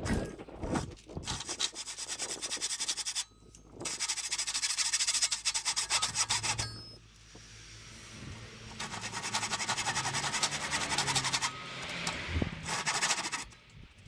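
A tool rasping against wood, as in sanding or sawing a birdhouse board, in several bouts of fast, even strokes a few seconds long with short pauses between.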